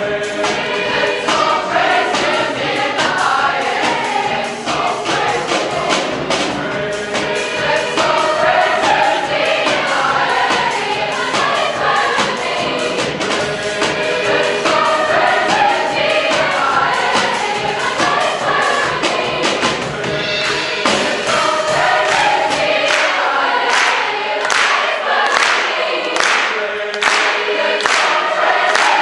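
Large junior high mixed choir singing full-voiced with piano, drum kit and conga accompaniment. In the last several seconds the low end thins out and sharp percussive hits punctuate the singing.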